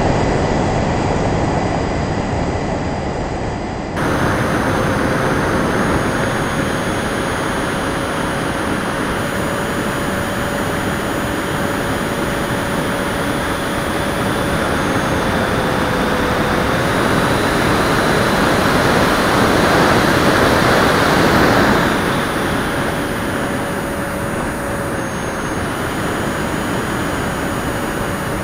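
Electric ducted fan of a Freewing L-39 model jet whining steadily over a loud rush of air, the fan note dipping briefly now and then. The sound changes abruptly about four seconds in, and the rush swells for a few seconds later on before easing.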